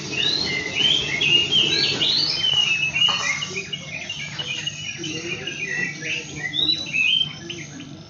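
Small songbirds twittering: a dense run of quick, high chirps for the first three seconds, then scattered chirps with a short burst again near the end. A faint steady low hum runs underneath.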